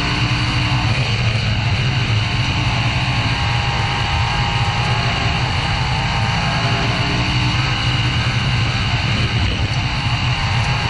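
Winged dirt sprint car's V8 engine running hard at race speed, heard from a camera mounted on the car: a steady, loud drone that holds without clear lifts or revs.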